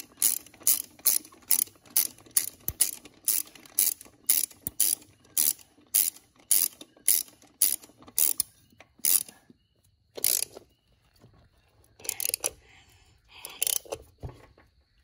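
Ratcheting wrench clicking in a steady rhythm, about two to three clicks a second, as a wheel lug nut is run down. It stops about nine seconds in, and a few scattered clicks and clinks follow.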